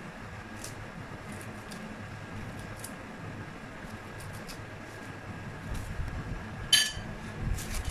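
Knife cutting kernels off a corn cob into a bowl: faint, crisp scrapes over a steady background hum. About seven seconds in there is a single sharp clink.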